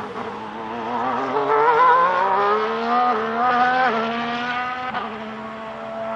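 Ferrari SF-23 Formula 1 car's 1.6-litre turbocharged hybrid V6 accelerating, its pitch climbing and then dropping sharply at gear changes, loudest about two seconds in. About five seconds in it falls to a steady, lower tone.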